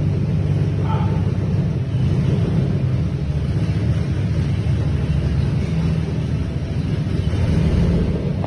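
Steady low rumble of a vehicle engine running at idle.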